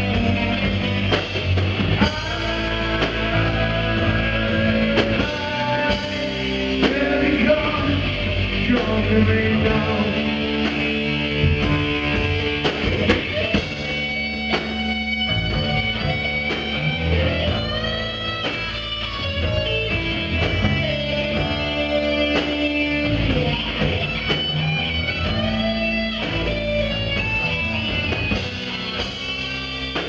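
Live rock band playing loud: electric guitars over a drum kit, the lead guitar holding long notes that bend in pitch.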